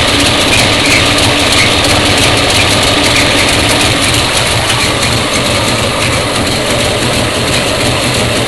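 Ford 289 V8 running at idle, loud and steady, with a high squeal near 2 kHz that comes and goes. The owner traces the squeal to the alternator under load, not the fan belt.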